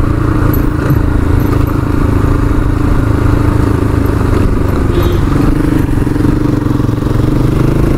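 Honda motorcycle's engine running as it is ridden and slowing down, with steady road and wind noise; the engine note rises a little near the end.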